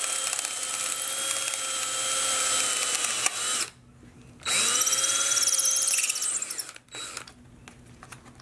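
Power drill with an eighth-inch bit drilling out a rivet: a steady motor whine that stops after about three and a half seconds, spins up again about a second later for roughly two more seconds, then winds down.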